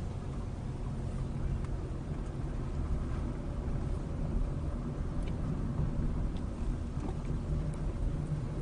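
Steady low rumble of a car driving slowly, engine and tyre noise heard from inside the cabin, with a few faint ticks.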